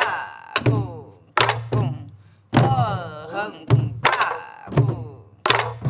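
Soribuk (pansori barrel drums) played together in a jangdan rhythm: about a dozen sharp stick strokes in an uneven, lilting pattern, each followed by the low boom of the drumheads. A voice sings in sliding tones between the strokes.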